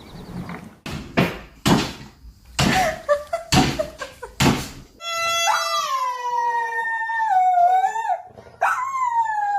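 A dog howling: one long howl that slowly falls in pitch begins about halfway through, and a second, shorter falling howl comes near the end. Before the howls there are several short, harsh bursts of sound.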